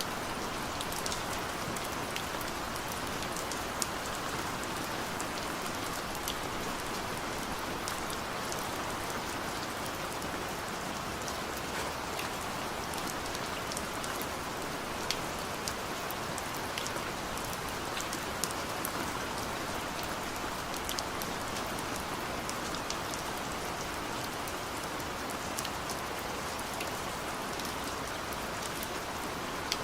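Steady rain falling, with individual drops ticking sharply here and there over an even hiss.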